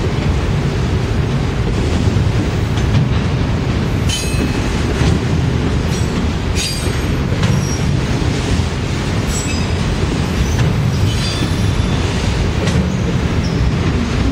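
Freight train of autorack cars rolling past at close range: a steady rumble of steel wheels on rail, broken by short high-pitched wheel squeals about half a dozen times.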